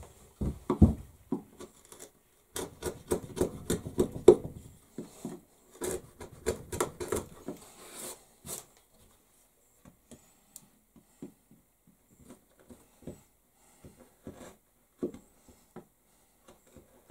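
A steel chisel scraping and knocking on wood on a workbench, with shavings brushed across the bench top: a busy run of scrapes and knocks over the first few seconds, thinning out, then only scattered light clicks.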